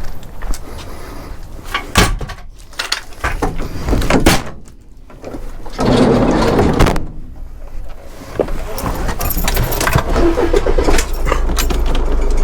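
Several sharp knocks and clunks of scrap being handled and loaded into a car, then the car running, with a steady low rumble building from about two-thirds of the way in.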